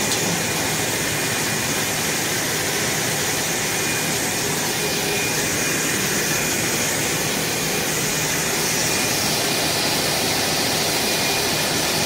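EVA spiral hose extrusion line running: a steady machine whir and hiss with a faint, thin high tone held throughout.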